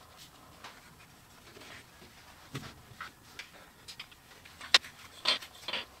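Strap clamp being handled: the nylon strap rustling and the clamp's metal buckle clicking, with scattered small clicks and one sharp click about three-quarters of the way in.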